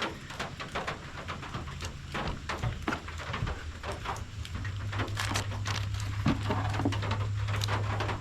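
Scattered light clicks and taps of small trimmer parts being handled during a carburetor fitting, over a steady low hum that starts about three and a half seconds in.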